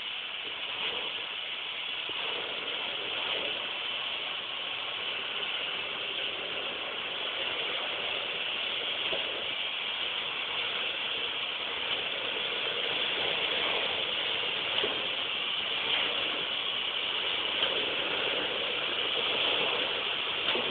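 Tractor-drawn Jiffy bale shredder at work, a steady mechanical clatter over the tractor's running, growing a little louder as it comes closer.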